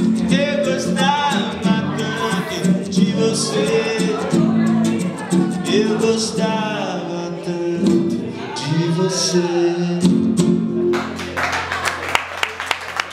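A man singing with acoustic guitar accompaniment. The song ends about eleven seconds in and audience applause follows.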